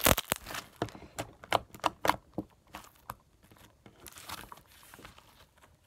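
Clear-glue slime being squeezed and kneaded by hand, giving a string of sharp wet pops and clicks. They come thickly in the first couple of seconds, the loudest right at the start, then thin out.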